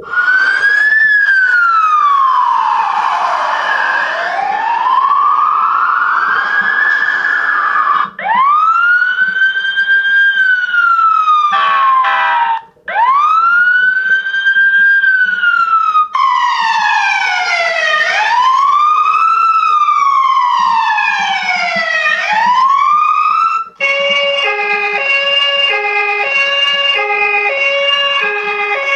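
Electronic siren alarm sounds played one after another from the 8849 Tank 2 rugged phone's loudspeaker. First comes one slow wail that falls and rises over several seconds, then rising sweeps that hold and cut off, then quicker up-and-down wails. Near the end it switches to a stepped pattern of alternating beeping tones.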